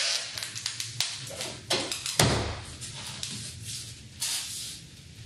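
Roller blind being pushed back into its overhead mounting brackets by hand: a run of clicks and knocks with rubbing between them, one louder knock about two seconds in.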